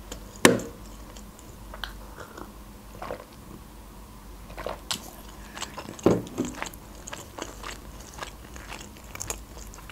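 Close-miked mouth sounds of a person chewing khachapuri cheese bread: soft wet chewing and lip clicks, with a few louder smacks. About midway she sips juice from a glass and swallows.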